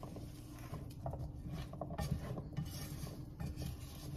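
Silicone spatula stirring seasoned kielbasa pieces in a saucepan: irregular soft knocks and scrapes against the pot.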